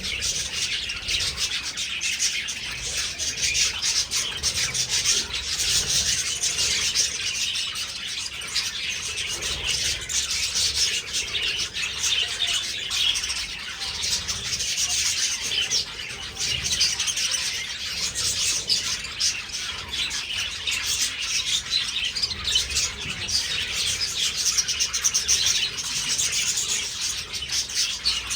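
A large flock of budgerigars chirping and chattering together, a dense, continuous mass of many overlapping short high calls.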